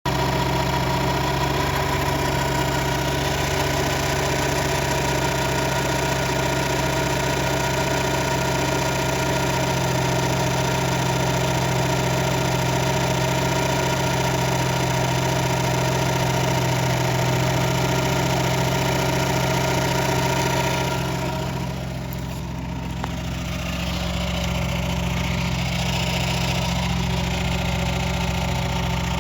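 Renault Espace III V6 24-valve engine idling steadily, with a steady high tone running through the hum: the abnormal noise that comes on 1 to 2 minutes after a start. About two thirds of the way through, the sound drops and changes, heard from under the wheel arch on the automatic gearbox side.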